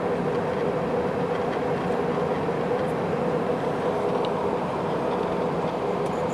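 Steady cabin noise inside an Airbus A320 in flight: the engines' drone and rushing airflow, with a constant hum running underneath.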